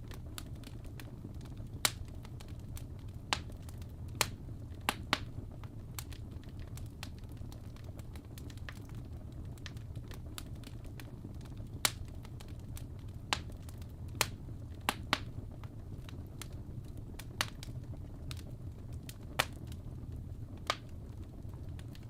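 Fire crackling: irregular sharp pops and snaps, about a dozen loud ones among many small ticks, over a steady low rumble.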